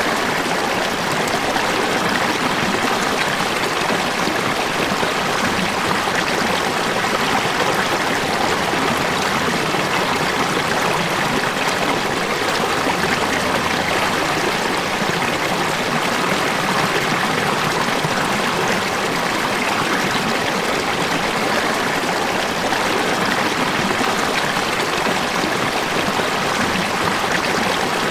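Water falling and splashing in a steady, unbroken rush, mostly bright and hissy with little deep rumble.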